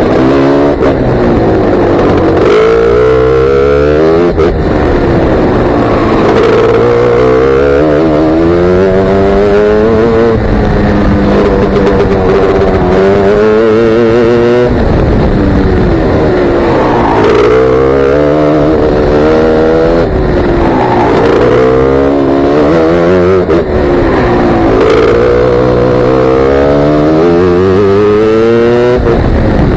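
Racing kart engine at full race pace, close to the microphone: its pitch climbs over several seconds on each straight, then drops sharply as the driver lifts and brakes for a corner, about six times.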